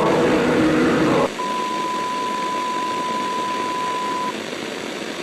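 A dense sound cuts off abruptly about a second in, and a single steady high beep tone follows for about three seconds over a hiss of static. The static carries on alone after the tone stops, like an emergency broadcast's end-of-transmission tone.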